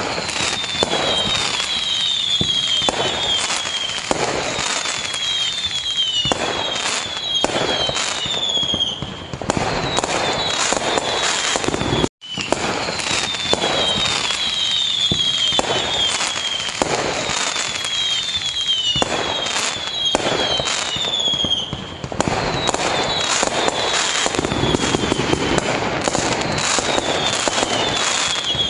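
Dense fireworks barrage: a continuous run of bangs and crackle, with repeated clusters of short, shrill, falling whistles. The sound cuts out for an instant about twelve seconds in.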